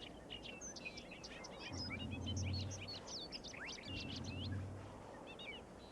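Small wild birds chirping rapidly and overlapping, with short rising and falling calls. Twice a low steady hum rises beneath them, each lasting about a second, and these hums are the loudest part.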